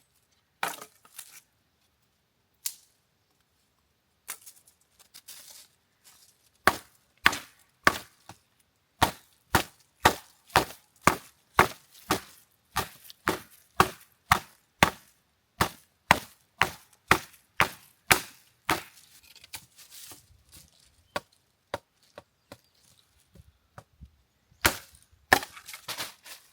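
Wood being chopped: a steady run of sharp chopping strikes, about two a second, starting several seconds in and stopping a little past the middle, with a few single knocks before it and a short cluster near the end.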